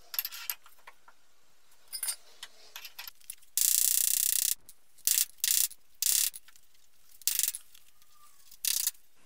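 Socket ratchet clicking as a rusty bolt under the car is undone: a few short runs of clicks, one longer run of about a second near the middle, then five brief strokes.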